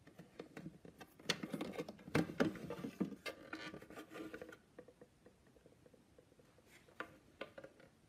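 Plastic parts of a coffee machine being handled: a few seconds of quick clicks, light rattling and rustling, then a few faint isolated clicks near the end.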